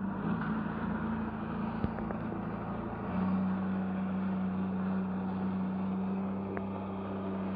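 Jet ski engine running steadily to drive a flyboard's water jet, with the hiss of churning water; about three seconds in the throttle is opened and the engine hum gets louder and holds there.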